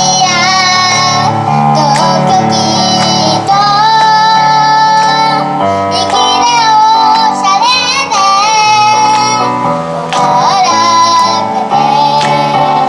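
A young girl singing a song over instrumental backing music, her held notes wavering in pitch.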